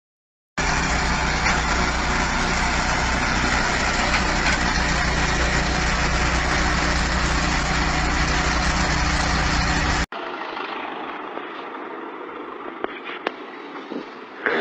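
A heavy machine's engine running steadily and loud at a constant speed, stopping abruptly about ten seconds in. A quieter background with a few light knocks follows.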